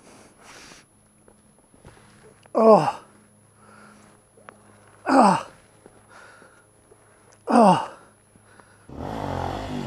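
A man groaning in pain three times after a dirt-bike crash, each a loud 'ahh' falling steeply in pitch, about two and a half seconds apart.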